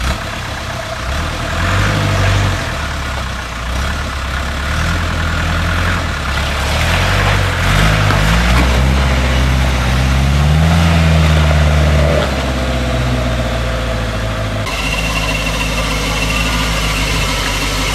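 Land Rover engine revving up and down under load as the truck climbs a steep muddy bank. About fifteen seconds in, the sound cuts abruptly to another engine running steadily.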